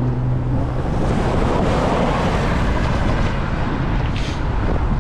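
Wind buffeting the microphone of a moving bicycle, a steady rumbling noise, with a passing motor vehicle's engine hum fading out about a second in.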